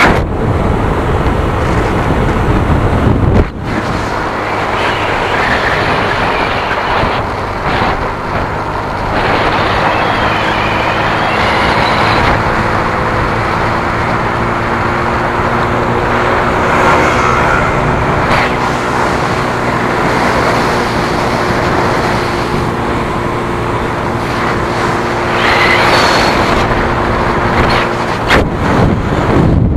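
Motorcycle engine running at a steady cruising speed, with wind and road noise rushing over the camera microphone.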